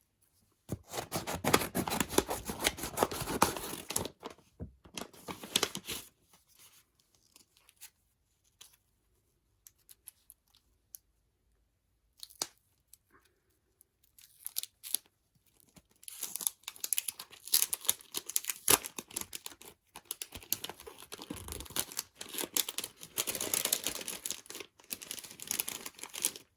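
Packaging around a photo card being torn and crinkled open by hand, in two long stretches of ripping and rustling about a quarter of the way apart, with scattered small rustles and clicks between them.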